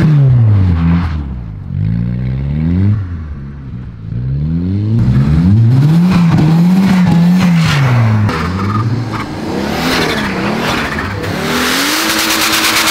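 Volvo estate car's engine revving up and down over and over as the car slides on snow, its pitch rising and falling with each throttle stab and dropping back for a couple of seconds early on. Near the end it is held at high revs with a rapid crackle.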